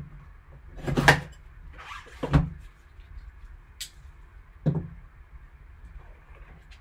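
A folding knife slitting the seal stickers on a cardboard trading-card box, then cardboard scraping and light taps as the box is handled and its lid lifted. It comes as a handful of separate strokes, the loudest about a second in.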